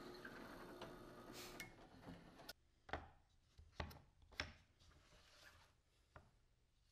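Faint, steady running of a drill press boring into a wooden block, which cuts off after about two and a half seconds. Then come a few light, separate knocks of steel router bits being set into wooden holder blocks.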